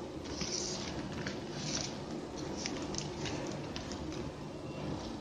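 Plastic basket-weaving wire rustling and ticking faintly as strands are pulled and threaded through the weave by hand, over a steady low background hum.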